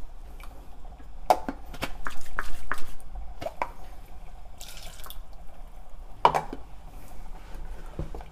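Plastic spatula stirring thick curry gravy in an aluminium pressure cooker: irregular wet plops and splashes with sharp clacks where it knocks against the pot.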